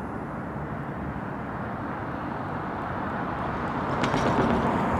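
Road traffic noise: a steady rush of tyres and engine that swells as a vehicle approaches, loudest near the end.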